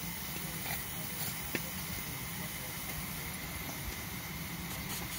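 5-inch gauge miniature steam locomotive simmering in steam: a steady hiss with a few faint clicks.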